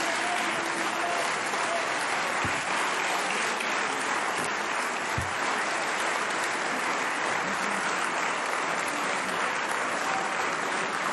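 A chamber full of senators applauding, a steady, sustained round of clapping that holds at an even level throughout.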